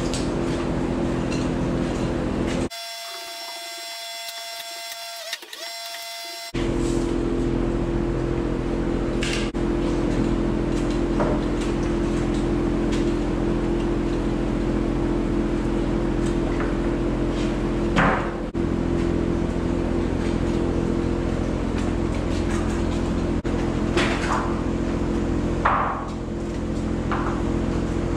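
A steady droning hum with fixed low pitches runs through, broken near the start by a few quieter seconds holding a different, higher tone. A handful of sharp knocks fall in the second half.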